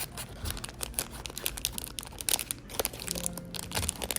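Gift packaging being handled and unwrapped: irregular crinkling and rustling with quick crackles throughout.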